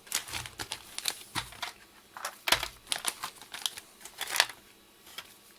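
Small electronic parts clicking and clattering as they are handled and sorted by hand, in an irregular run of sharp clicks. The clicks stop about four and a half seconds in.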